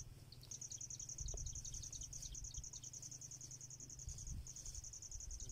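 An insect trilling in a fast, high-pitched pulsed trill. It starts about half a second in and breaks off briefly about four seconds in, over a low rumble.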